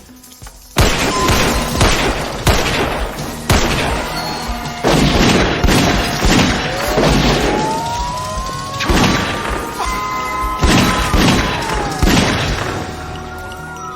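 Action-film crash and impact effects: a sudden loud crash about a second in, then a run of heavy booms and smashing impacts every second or so, with a long gliding whine that rises and then falls in the middle.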